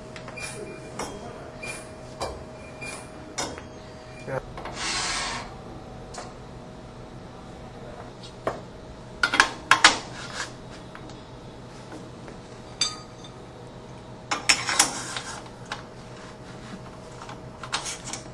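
Metal clicks and clanks as a screen frame is fitted into an emulsion coating machine and its clamps are locked down, in clusters of sharp knocks through the second half. A run of light, evenly spaced clicks comes first, then a short hiss about five seconds in, over a steady faint hum.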